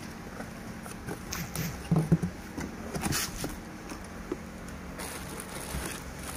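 Cardboard box and plastic-wrapped parts being handled: irregular rustling, crinkling and knocks, the loudest knock about two seconds in, over a steady low hum.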